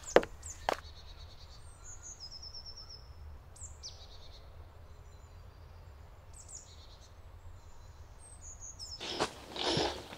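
Two sharp clicks at the start, then small birds chirping in a forest over a low steady rumble. Near the end come footsteps crunching through dry fallen leaves.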